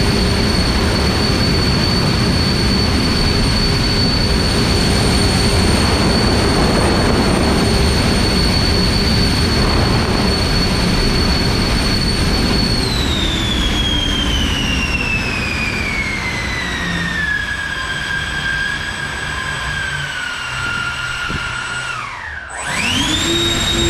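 A high-speed electric motor running with a steady whine over rushing air. About halfway through, its pitch falls steadily as it slows. Near the end it nearly cuts out, then quickly spins back up to full speed.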